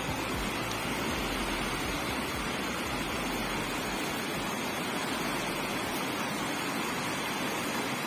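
Fast mountain river rushing over rocks: a steady, even rush of white water.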